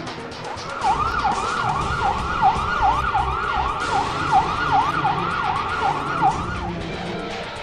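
Emergency-vehicle siren sound effect in a fast yelp, its pitch sweeping down and up about two and a half times a second. It starts about a second in and stops shortly before the end.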